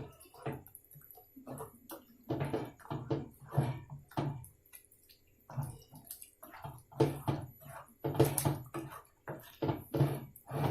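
Spatula stirring chicken pieces in a wet tomato mixture in a pan: irregular scraping strokes, several a second at times.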